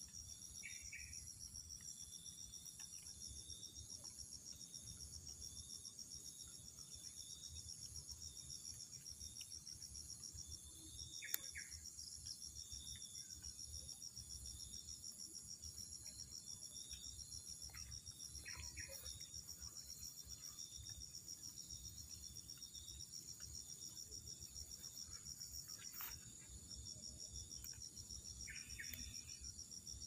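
A chorus of insects chirring steadily in a continuous high-pitched pulsing trill, faint, with a few short chirps now and then and one sharp click about a third of the way through.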